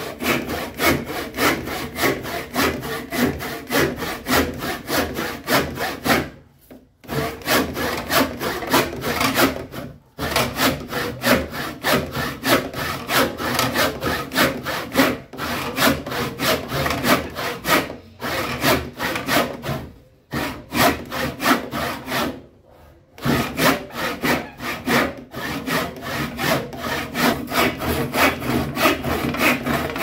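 Handsaw cutting through wood with quick, even back-and-forth rasping strokes, stopping briefly a few times before sawing on.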